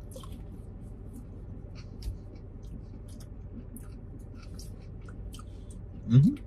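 Quiet eating sounds: forks scraping and tapping in a cardboard takeout tray, with small clicks and chewing, over a low steady hum. A short knock comes about two seconds in, and near the end one of them gives a short rising hummed "mm".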